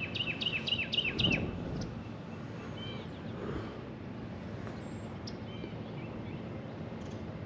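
A songbird singing a quick run of about six falling whistled notes in the first second and a half, then a few faint chirps, over a steady outdoor hiss.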